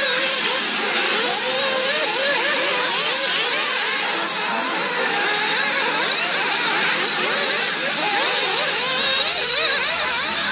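Several nitro-engined radio-controlled model cars racing together, their small engines revving up and down over and over in an overlapping, ever-shifting buzz.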